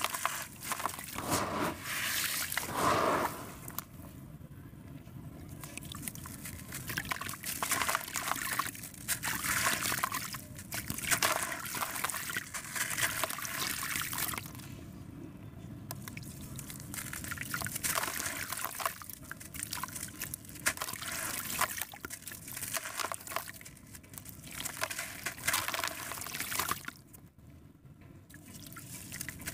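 Sand-and-cement concrete crumbled by hand into a bucket of water: gritty crunching as the chunks break, with crumbs and grains pattering and trickling into the water. It comes in bursts, with three short quieter pauses.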